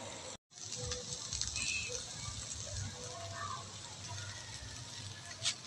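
Beaten eggs and tomatoes frying in a non-stick pan with a faint, steady sizzle. The sound cuts out for an instant just under half a second in, and there is a sharp click near the end.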